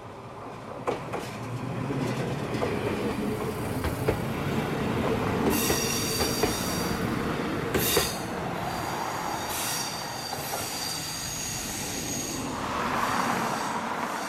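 JR HB-E300 series hybrid railcar passing close by, its running gear rumbling, with a few sharp clicks from the rail joints. High wheel squeal comes and goes in the middle, and the sound swells again near the end.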